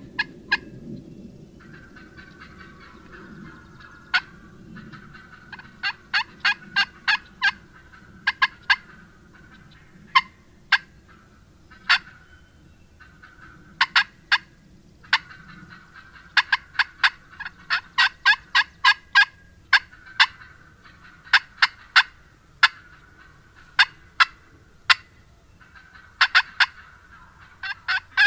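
Turkey cutting: loud, sharp clucks fired in fast, irregular runs of several a second, the excited calling of a worked-up hen.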